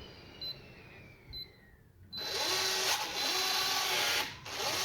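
Keypad smart lock: two short high beeps as code keys are pressed, then about two seconds in the lock's small motor whirs steadily as it drives the deadbolt, dropping out briefly near the end before running on.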